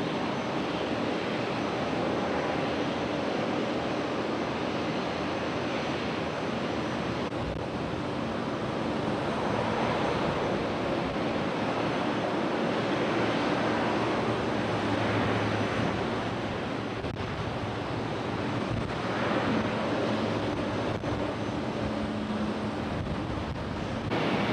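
Engines of an Airbus A320neo jet airliner running as it rolls along the runway: a steady rumble with a faint low hum.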